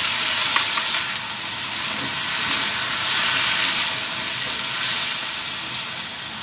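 Shrimp, carrots and onions sizzling with a steady hiss of steam in a hot wok, the little water just added boiling off, while a spatula stirs the food with a few light scrapes against the pan.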